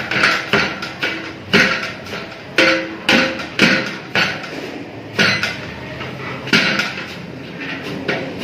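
Long iron paddle knocking and scraping against the wall of a large aluminium cooking pot as bread halwa is stirred and mashed soft: about a dozen irregular metallic clanks, closer together in the first half and sparser later.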